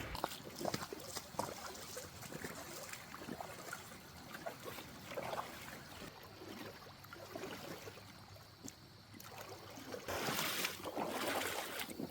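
A person wading through a shallow creek: water sloshing and trickling around the legs, with scattered small splashes, louder for the last couple of seconds.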